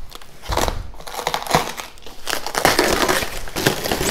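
Plastic and foam packing wrap and cardboard crinkling and rustling in irregular bursts as a boxed foot pedal tray is unwrapped by hand.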